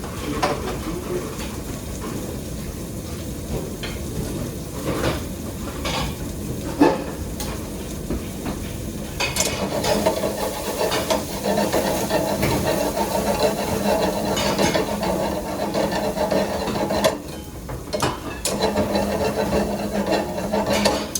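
Kitchen work: metal utensils scraping and clinking against pans and dishes over a steady hiss of cooking. There is a sharp clatter about seven seconds in, and a denser rasping scrape runs from about nine to seventeen seconds.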